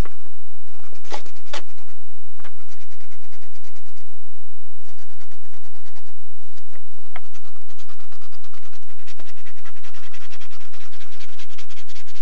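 Scratch-off lottery tickets being scratched, with many quick scraping strokes in a continuous run and a few sharper strokes among them.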